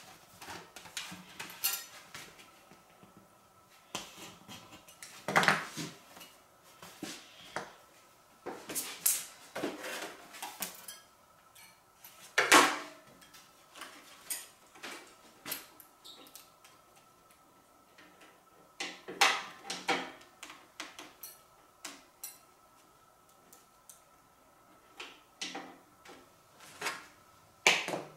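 Thin wood veneer sheets and small hand tools being handled on a workbench: scattered light clicks, taps and rustles, with a couple of louder knocks about five and twelve seconds in. A faint steady hum runs underneath.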